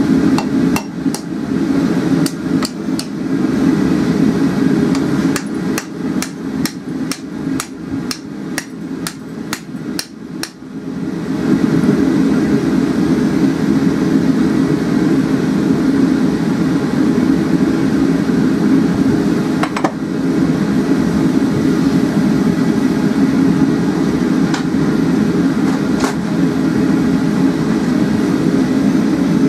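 Hand hammer striking a steel hook on the anvil, light blows several times a second, stopping about ten seconds in. Under it the steady low rush of a gas forge burner runs throughout and grows louder after the hammering stops.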